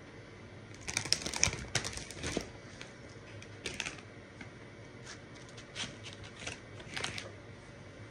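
A person chewing a sticky marshmallow cake close to the microphone: wet mouth clicks and smacks, thick for the first couple of seconds, then a few scattered ones.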